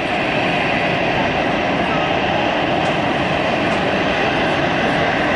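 Jet engines of an Airbus A320-family airliner running steadily at taxi power as it rolls along the taxiway: an even, continuous rumble and hiss.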